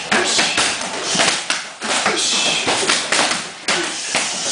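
Punches and kicks landing on hand-held striking pads and kick shields: an irregular run of slaps and thuds from several pairs hitting at once.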